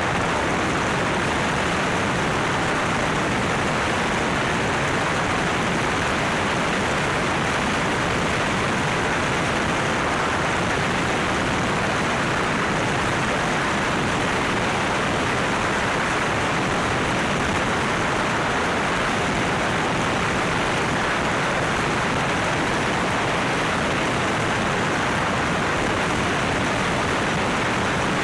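Floatplane in motion: engine and propeller noise mixed with wind rushing over the microphone, an even noise that holds steady without changing.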